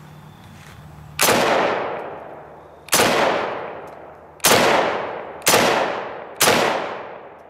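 Five single shots from a Ruger Mini-14 Ranch Rifle in .223, fired one at a time with uneven gaps of one to two seconds. Each report trails off over about a second.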